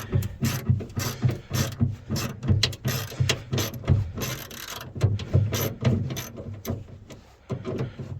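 Hand ratchet wrench clicking as it is worked back and forth in quick strokes, two or three a second, loosening a fastener.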